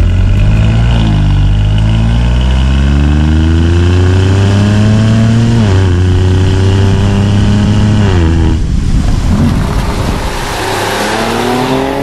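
The twin-turbo 3-litre V6 of a Stage 1-remapped Mercedes-AMG GLE43 pulling hard under full acceleration, its note climbing steadily and dropping sharply at each quick upshift of the 9-speed automatic, about six and eight and a half seconds in. After the second shift the engine note thins out under a rushing noise, then starts climbing again near the end.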